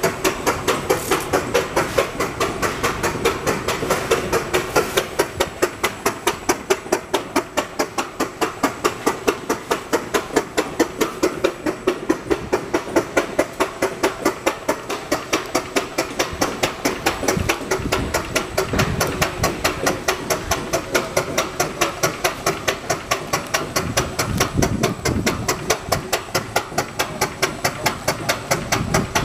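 A machine running with a steady, rhythmic knock, about four beats a second.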